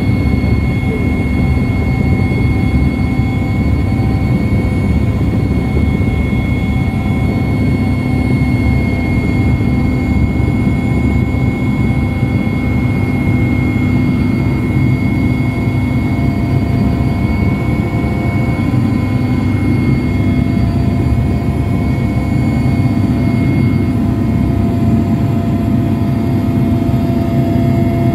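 Helicopter engine and rotor noise heard from inside the cabin during the descent to land: a loud, steady drone with a steady high whine running through it.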